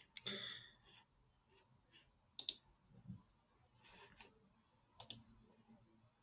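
Faint, scattered clicks of a computer pointing device, several short sharp clicks spread over the few seconds.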